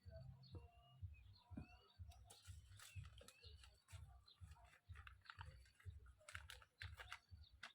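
Faint bird chirps, short rising calls, over scattered light clicks and rustles.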